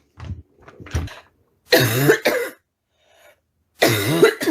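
A woman's barking cough in repeated fits: a couple of small coughs early on, then two loud, harsh voiced coughing bursts about two seconds apart. It is the persistent barking cough that gets worse at night.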